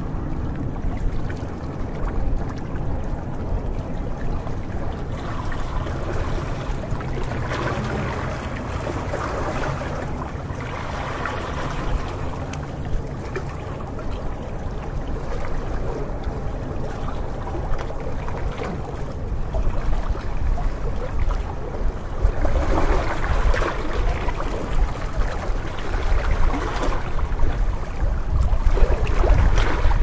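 Small sea waves lapping and splashing against shoreline rocks, swelling in surges every few seconds, over a steady low rumble.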